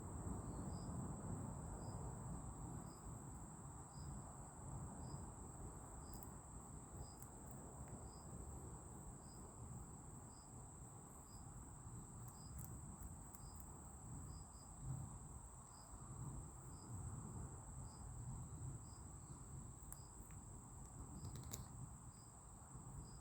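Insects calling: a steady high-pitched trill, with a separate short chirp repeating about once a second, over a low rumble.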